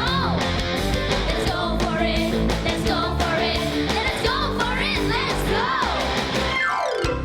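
Upbeat rock-style cartoon theme song with a singing voice over drums. A falling slide comes near the end, just before the music stops.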